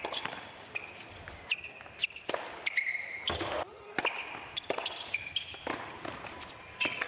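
Tennis rally on an indoor hard court: sharp racket hits and ball bounces about once or twice a second, with sneakers squeaking on the court between shots.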